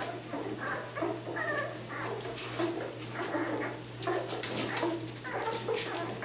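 Nine-day-old Labrador retriever puppies whimpering and squeaking while they nurse, in many short, overlapping calls.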